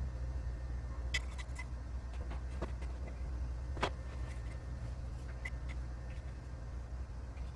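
A steady low machine hum with a few light clicks and taps scattered over it, the sharpest about four seconds in.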